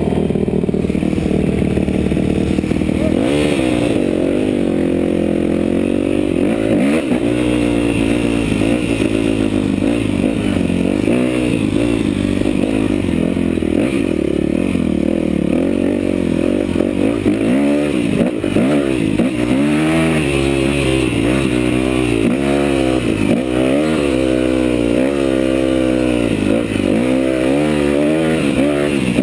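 Yamaha dirt bike engine idling steadily for about three seconds, then revving up and down over and over as the bike rides a rough dirt trail, the pitch rising and falling every second or two.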